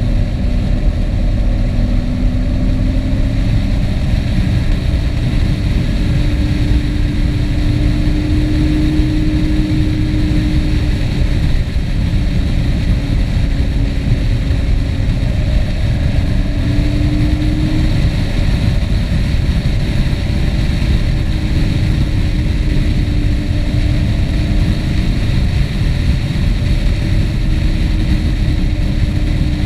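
A vehicle engine running at cruising speed, its pitch drifting slowly up and down, under heavy low rumbling wind and road noise.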